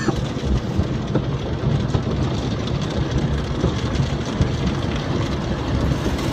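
Automatic car wash running over the car, heard from inside the cabin: a steady low rumble from the brushes and water with a hiss over it.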